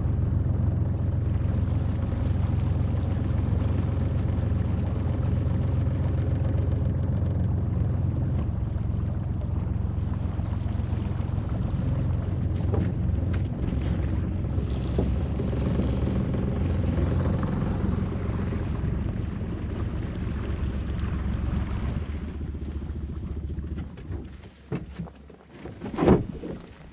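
Boat's outboard motor running steadily as the boat pays out a seine net along the shore. Near the end the motor drops away and a few knocks and clatters follow, the loudest just before the end.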